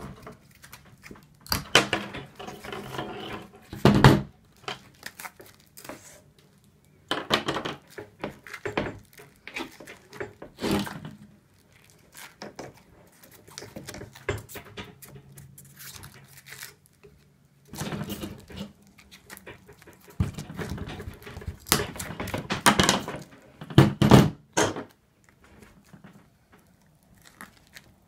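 Lineman's pliers snipping through the stripped plastic jacket and thin metal armour of a fiber-optic cable, with irregular crinkling and rustling as the pieces are handled. A few louder sharp snaps stand out, one about four seconds in and more around twenty-two to twenty-four seconds in.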